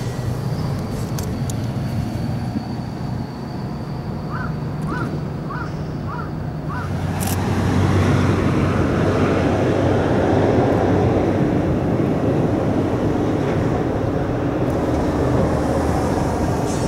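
Harbour tug's diesel engine running with a steady low drone while the tug pushes against the side of an LNG tanker, growing louder and rougher about eight seconds in as it works harder. Five short chirps come through about four to seven seconds in.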